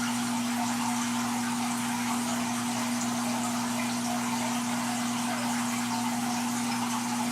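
Saltwater aquarium running: steady water circulation and splashing with a constant electrical hum from the tank's pump and powerheads.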